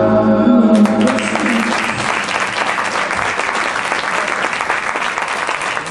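Program music with singing ends about a second in, and audience applause takes over, clapping steadily through the rest.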